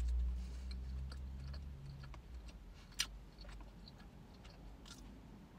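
Quiet chewing of a small piece of mild cheese, with a few small mouth clicks, one sharper about three seconds in. A low rumble fades out over the first two seconds.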